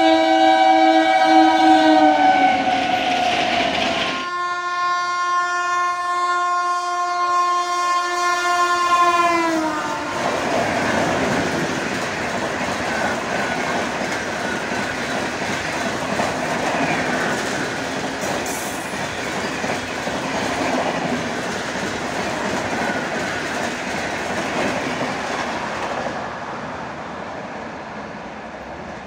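Train horn in two long multi-tone blasts, each dropping in pitch as the locomotive passes, then an express train's coaches running past at speed with wheels clattering over the rail joints, fading near the end.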